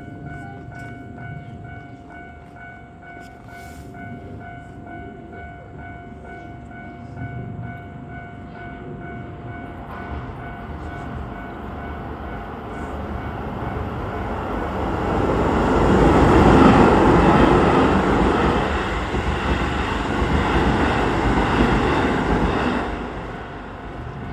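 A Japanese level-crossing alarm rings steadily while a Keisei Main Line train approaches and passes over the crossing. The train noise builds to its loudest about two-thirds of the way through, then falls away sharply near the end.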